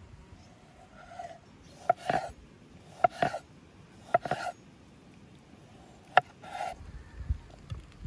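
Chef's knife slicing a tomato on a wooden cutting board: four sharp knocks of the blade on the board, each with a brief scrape of the blade, about a second apart with a longer gap before the last. Near the end come soft, dull thumps as the slices are handled and laid in a wooden tray.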